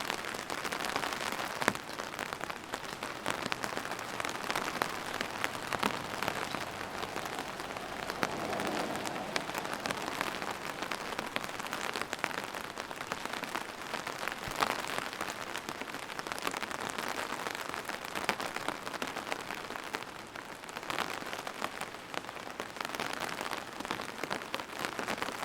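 Steady rain falling on a hard surface, a continuous hiss with many individual drops tapping sharply.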